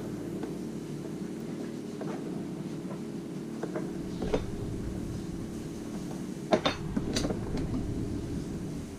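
Scattered light clicks and clinks of a metal splicing fid and hand tools knocking together and on a plastic cutting board as Dyneema rope is worked through the fid, with a pair of sharper clinks about two-thirds of the way through. A steady low hum sits underneath.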